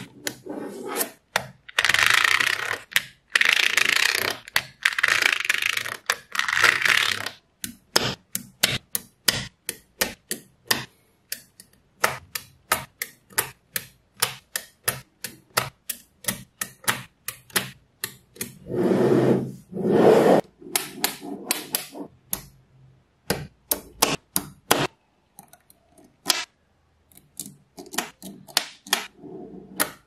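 Small magnetic balls clicking and snapping together as rows of balls are pressed onto a growing block, in rapid irregular clicks, with a few longer stretches of rattling as many balls shift at once.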